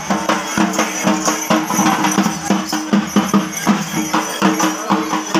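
Loud festival percussion music with a fast, steady beat of drum strikes, several a second, and ringing metal percussion over it.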